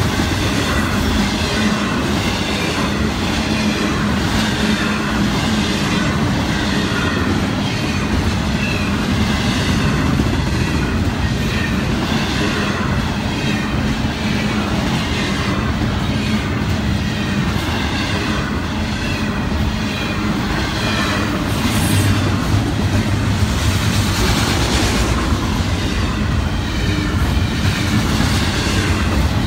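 Double-stack intermodal freight train's well cars rolling past at close range: a loud, steady noise of steel wheels on rail, with clicks repeating as the wheels cross rail joints.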